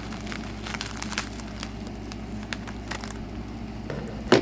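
Packaging crinkling and crackling as a wrapped item is handled and unwrapped, in scattered small crackles with one louder crackle near the end.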